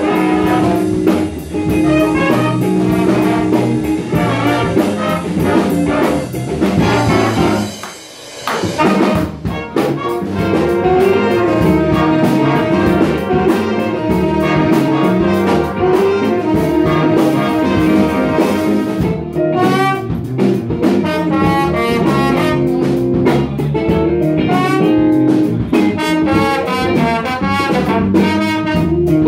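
A school jazz big band playing live: a saxophone section with trumpets and trombones. The band drops out briefly about eight seconds in, then comes back in full.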